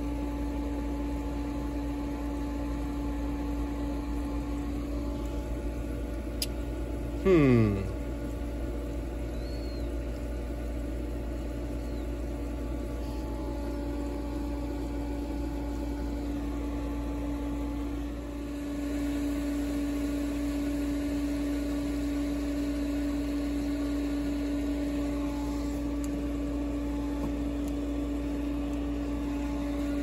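Steady hum of running pool equipment, one tone held throughout. It is broken about seven seconds in by a short, loud chirp that falls sharply in pitch. About eighteen seconds in the hum grows slightly louder.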